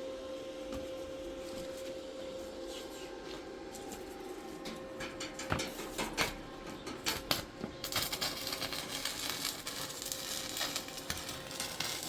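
A steady hum with scattered clicks and knocks, then about eight seconds in a dense crackling hiss starts and keeps going: electric arc welding.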